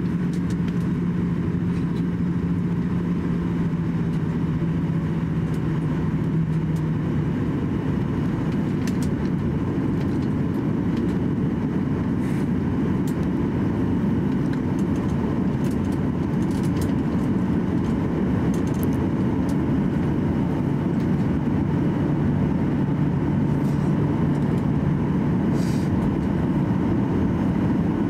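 Cabin noise of a Boeing 737-800 taxiing: a steady rumble and rush from its CFM56 engines at taxi power and the cabin air. A low steady hum fades out about seven seconds in and comes back near the end, with a few faint ticks.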